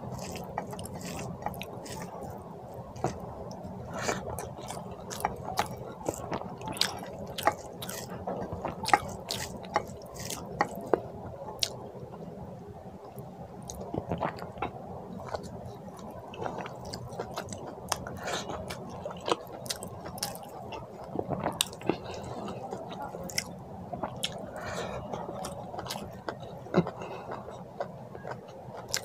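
Close-up eating sounds: wet squishing of rice and mutton curry kneaded by hand on a plate, with chewing and many small sharp mouth clicks and smacks.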